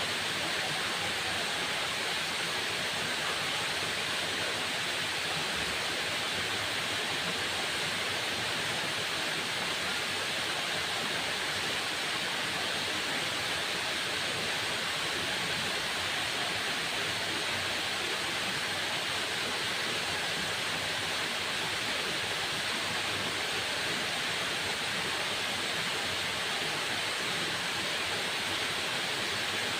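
Waterfall: water falling and splashing in a steady, even rush with no breaks.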